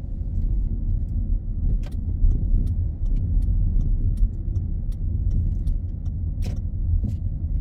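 Steady low road and engine rumble of a small car heard from inside the cabin while driving, with faint regular ticking about two or three times a second through the middle.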